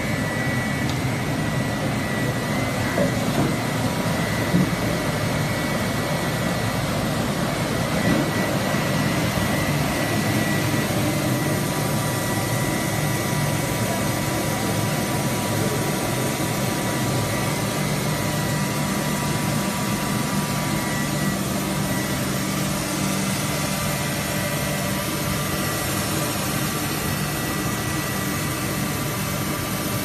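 Cascade plastic pelletizing line running: a steady machinery drone with a constant high-pitched whine, and a couple of brief knocks a few seconds in.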